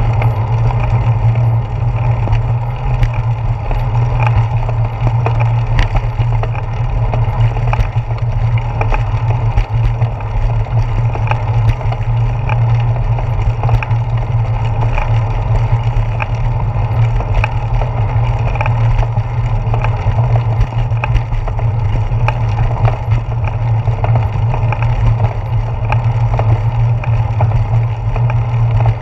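Steady low rumble of a bicycle rolling over pavement, carried through the handlebars into a handlebar-mounted GoPro Hero 4 in its housing, with frequent small ticks and knocks from bumps in the path.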